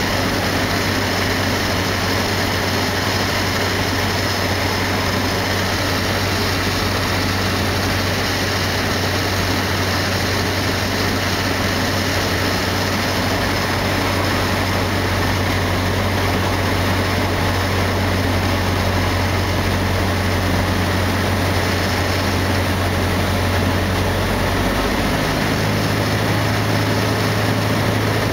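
Cessna 152's four-cylinder Lycoming O-235 engine and propeller running steadily in flight, heard inside the cabin as a constant low drone. About 25 seconds in, the pitch steps up slightly with a change in engine speed.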